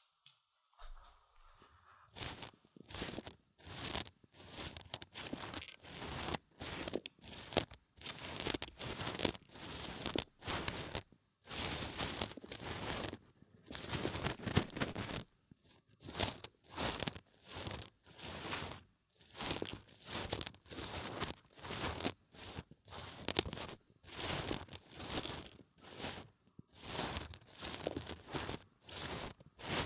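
Dry mung beans rustling and crunching inside the silicone ear of a binaural microphone as they are stirred and pushed around, in short bursts about once a second, starting about a second in.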